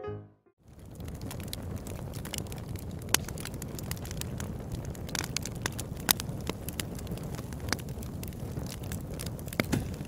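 Crackling fire sound effect: a steady low rumble with scattered sharp pops, starting about half a second in after a brief silence.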